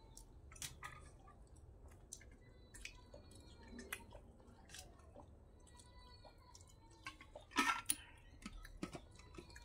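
Close-up eating sounds of people eating a soupy mackerel curry: scattered wet chews, lip smacks and slurps, with a louder cluster of smacks about three-quarters of the way through.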